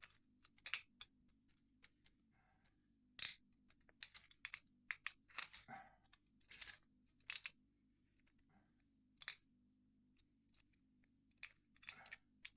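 Homemade lock picks and tensioners clicking and scraping against a Squire 660 padlock as it is picked, with the tools working past the keyway's sliding shutter. The clicks come irregularly, a sharp one about three seconds in being the loudest.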